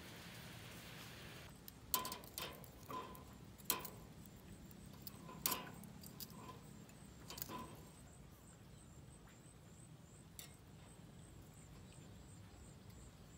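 A string of sharp clicks and clinks, about seven of them close together, followed by a single faint one later on, with a faint high ticking behind.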